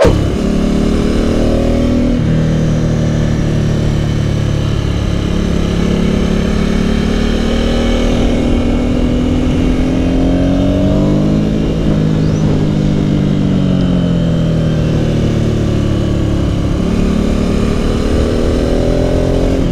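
Motorcycle engine running while the bike is ridden through bends, its pitch rising and falling as the rider accelerates and eases off, with sudden drops in pitch about two seconds in and again near the end.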